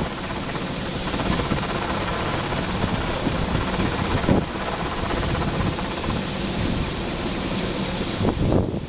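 News helicopter's engine and rotor running steadily on a rooftop helipad, about to take off.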